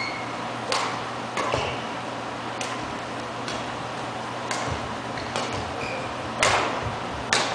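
Badminton rally: rackets striking a shuttlecock back and forth, about eight crisp hits roughly a second apart, the last two loudest.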